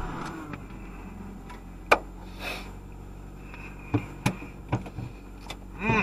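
Car interior with the car running, a steady low hum. Over it come several sharp clicks, the loudest about two seconds in and a cluster in the second half, and a brief rustle, like handling in the cabin.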